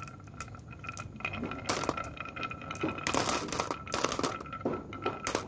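Glass marbles rolling down a wavy-grooved wooden marble run and clattering in quick clusters of clicks as they drop among other marbles in a plastic cup.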